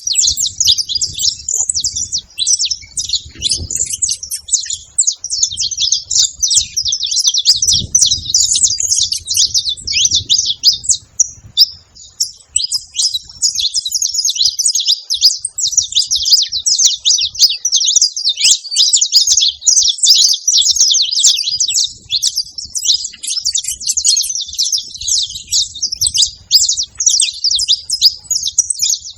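Saffron finch (canário-da-terra) singing a long, rapid run of high chirping notes, with a brief pause about eleven seconds in.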